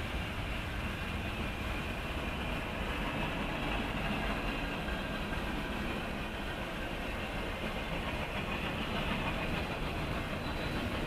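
Mixed freight train rolling past, a steady rumble of its cars' wheels on the rails, picked up by a dashcam microphone.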